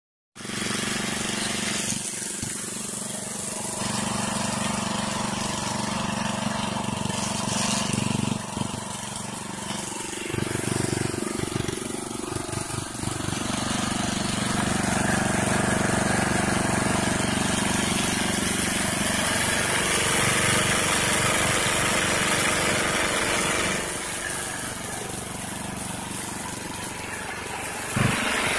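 Red Lion gas-engine semi-trash pump running steadily while it pumps muddy water through its suction and discharge hoses. The engine note holds even, a little quieter for a few seconds near the end.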